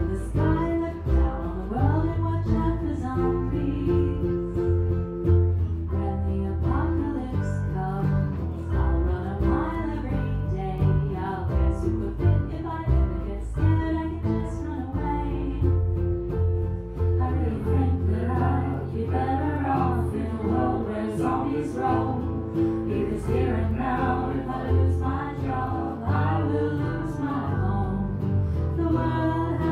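A live acoustic pop-folk band playing a song on archtop electric guitar, ukulele and acoustic guitar, with sung vocals.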